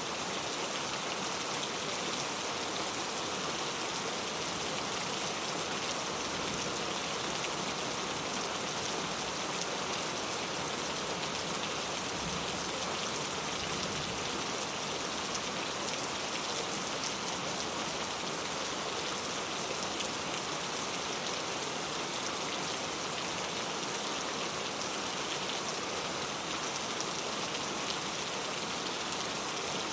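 Steady rain falling, a dense even hiss of drops pattering on surfaces, with no let-up.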